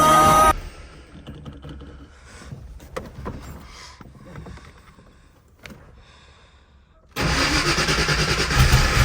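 A music clip cuts off, followed by a few seconds of small clicks and knocks. About seven seconds in, the engine of a 1992 Ford Mustang Fox-body comes in suddenly and runs loudly with a deep low end.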